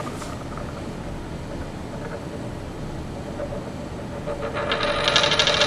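A quarter spinning and wobbling down on a hard floor: a faint low background at first, then about four and a half seconds in a fast metallic rattle builds as the coin settles toward lying flat.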